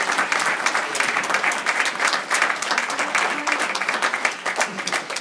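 Audience of school pupils applauding steadily, many hands clapping at once.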